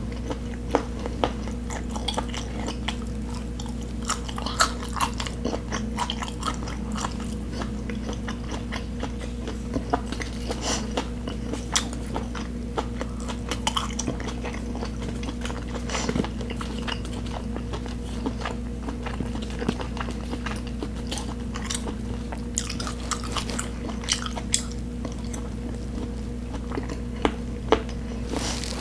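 Close-miked chewing: a person eating, with many short, irregular wet clicks of the mouth and food, over a steady low hum.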